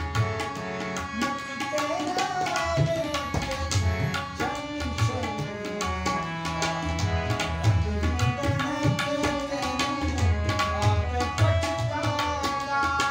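A pair of tabla played in a quick, dense rhythm with deep bass strokes on the larger drum. A harmonium holds steady chords underneath, and a man's voice sings over it in gliding phrases.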